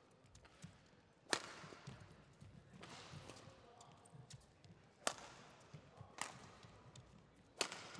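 Badminton rackets striking the shuttlecock in a doubles rally: about four loud, sharp cracks at uneven intervals, with fainter knocks between them.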